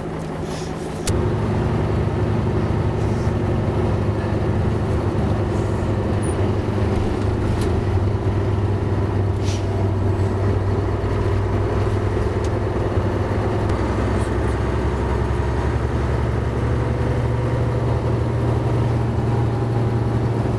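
Bus engine running with a steady low drone, heard from inside the bus. It grows louder about a second in and then holds steady.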